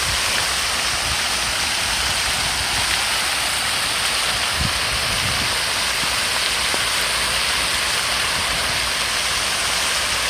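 Steady rush of fountain water spraying and splashing.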